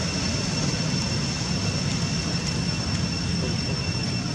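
Steady low rumble of outdoor background noise, with two faint, steady high-pitched whines over it.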